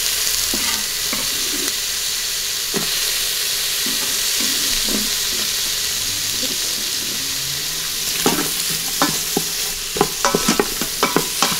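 Sliced onions sizzling in oil and butter in the stainless steel inner pot of an Instant Pot electric pressure cooker on its sauté setting: a steady hiss. A wooden spoon stirs them, and its scrapes and knocks against the pot come more often in the last few seconds.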